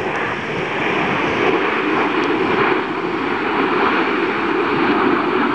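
Formation of Aermacchi MB-339 jet trainers with Rolls-Royce Viper turbojets flying overhead, a steady rushing jet noise.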